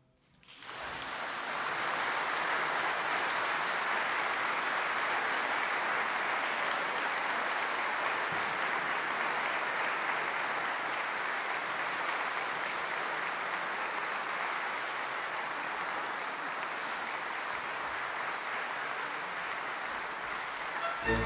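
Audience applauding: the clapping starts about half a second in and swells within a couple of seconds to a steady, dense clapping that eases slightly near the end.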